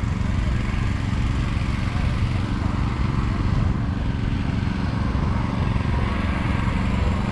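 Small engine running steadily at an even speed.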